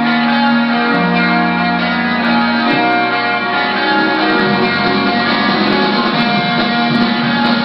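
Background music, with held notes that change every second or two.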